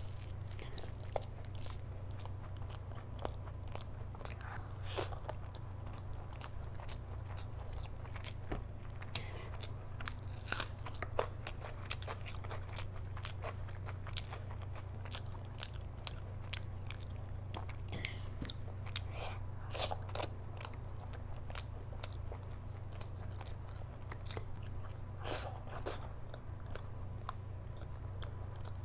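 Close-miked chewing of big mouthfuls of rice and curry, with many irregular wet mouth clicks, over a steady low hum.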